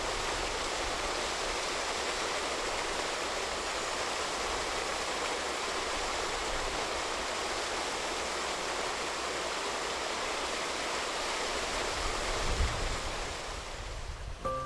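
Steady rush of flowing water, fading out near the end.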